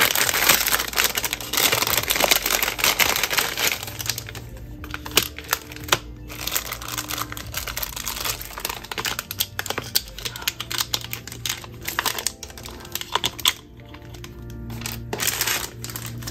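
Plastic packaging crinkling and rustling as a parcel is handled and opened, densest in the first few seconds, then scattered clicks and taps of handling. Soft background music runs underneath.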